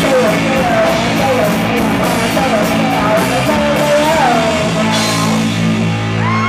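Live rock band playing: a woman singing over electric bass, guitar and drum kit. About five seconds in the drumming stops and the band holds a final chord ringing.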